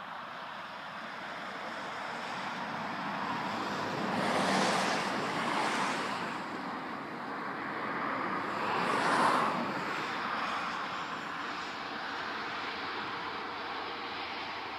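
Class 66 diesel-electric locomotive running along the line, its engine a steady drone that swells twice, about four and nine seconds in.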